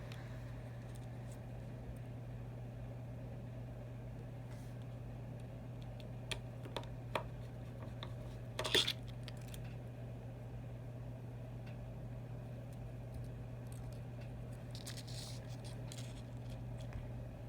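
A few small clicks and taps of tools against tiny phone parts during iPhone 6 reassembly, the loudest a short cluster about nine seconds in, over a steady low hum.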